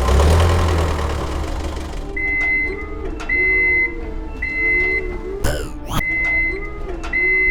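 Cartoon sound effects: a sudden noisy start with a low hum that fades, then a high electronic beep repeating about once a second, like a vehicle's reversing alarm, over a lower wavering tone. Two short sweeping sounds come a little past the middle.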